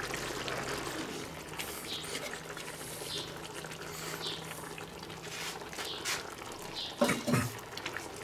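Creamy mushroom sauce simmering and bubbling in a cast-iron skillet on a gas side burner while a wooden spoon stirs it. A brief louder sound comes about seven seconds in.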